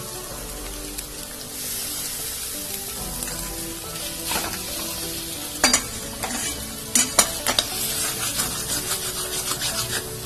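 Flat metal spatula scraping and tapping against a steel kadai, stirring and mashing a potato and vegetable stuffing that sizzles in oil. The scraping strokes start about four seconds in and come several a second in the second half.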